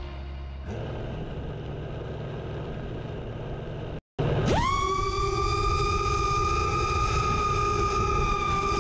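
Five-inch FPV quadcopter's brushless motors (Lumenier 2204 2500KV) and three-blade props. After a low steady rumble and a brief drop to silence about four seconds in, the motors spool up quickly into a loud steady high whine with a clear pitch, held in flight.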